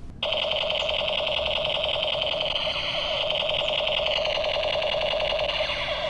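Battery-powered toy guns firing their electronic machine-gun sound effect: a loud, rapid, buzzing rattle from small built-in speakers that starts suddenly a moment in and keeps going steadily.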